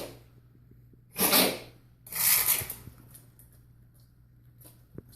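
A pet sneezing twice in quick succession, part of a sneeze attack. The sneezes are short, sharp bursts about a second apart.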